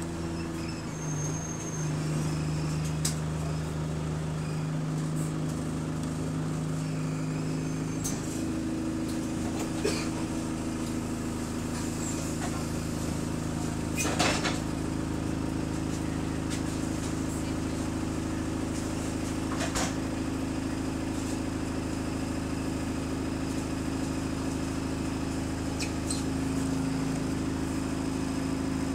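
Bus engine and drivetrain heard from inside the passenger saloon, the engine note rising in steps over the first eight seconds as the bus pulls away, then running steadily. Occasional knocks and rattles from the bodywork, the loudest about fourteen seconds in.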